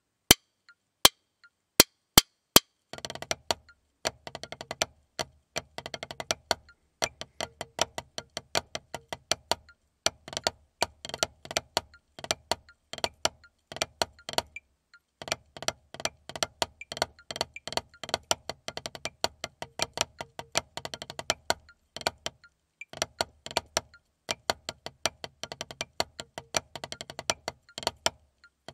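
Wooden drumsticks playing a rudimental snare-drum solo on a Vater rubber practice pad, with fast runs of strokes and accents in phrases separated by brief pauses. A few separate sharp clicks come first, and the playing starts about three seconds in.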